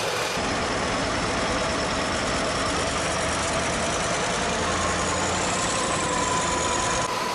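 Off-road vehicle engine running steadily.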